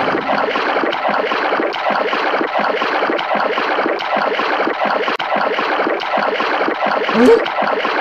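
Water splashing and churning steadily, a cartoon sound effect for a small boat being paddled fast. A brief rising squeak comes about seven seconds in.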